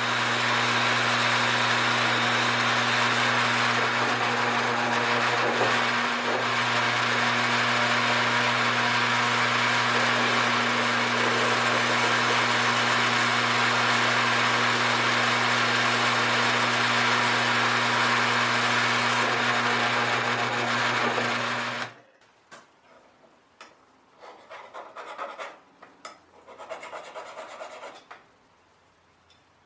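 Drill press running with a steady motor hum, its 3/16-inch bit cutting holes through a knife tang for the handle-scale fasteners. It cuts off suddenly about 22 seconds in, and faint, scattered scraping sounds follow.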